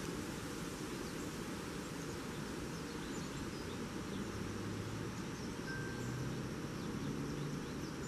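Outdoor storm ambience: a steady rush of wind in the trees with crickets trilling faintly, and a short high note a little past the middle.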